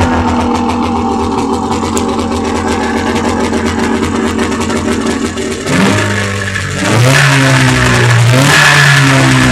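Two-cylinder two-stroke snowmobile engine idling steadily, then revved up and down several times from about six seconds in. The engine now fires on both cylinders at idle after earlier running on only one.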